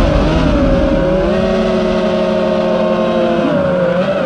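FPV racing quadcopter's Emax Eco II brushless motors whining, several pitches held together and gliding gently down and back up with the throttle. A lower steady hum joins for a couple of seconds in the middle.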